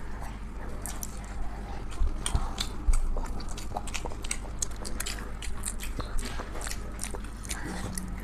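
People chewing and eating, with many small wet mouth clicks and smacks scattered irregularly.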